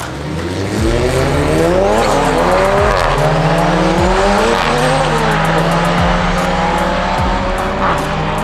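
Car engine accelerating hard on a drag strip, its pitch climbing and dropping back several times as it shifts up through the gears.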